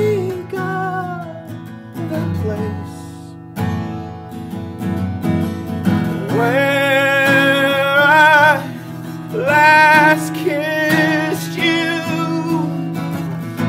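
Live acoustic performance: a man sings long held notes with vibrato over a steadily strummed acoustic guitar. The voice comes and goes in phrases, with the longest and loudest held notes in the middle.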